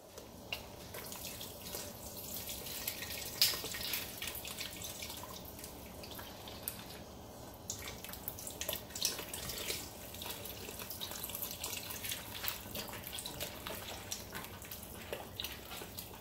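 Chicken stock pouring steadily from a carton into a large stainless steel stockpot of hot water, with scattered small clicks and splashes.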